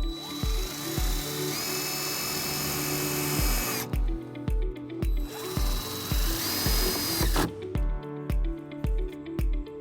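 Cordless drill spinning a quarter-inch socket to drive a self-tapping ground screw into the vehicle's sheet-metal body side, in two runs: one of about four seconds, then a shorter one a second later. The motor's pitch steps up partway through each run. Background music with a steady beat plays throughout.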